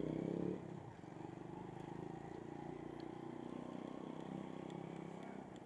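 A small engine running steadily with a rapid pulsing rumble, a little louder in the first half second.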